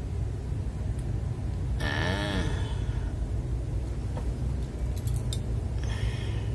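A few small sharp plastic clicks about five seconds in, from a mechanical keyboard switch being handled and fitted into an acrylic switch lube station, over a steady low hum. A short voice sound comes about two seconds in.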